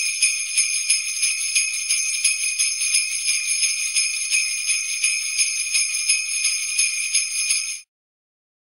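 Sleigh bells shaken in a steady, even rhythm, a continuous bright jingling that stops abruptly near the end.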